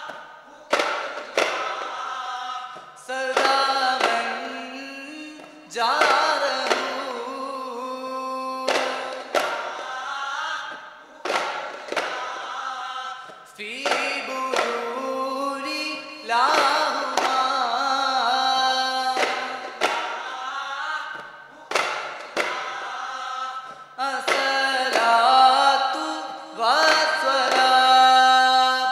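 Duff muttu: a group of male voices singing a chant in unison chorus, in phrases of a few seconds, while daf frame drums are struck by hand, with sharp drum beats in the short gaps between the sung phrases.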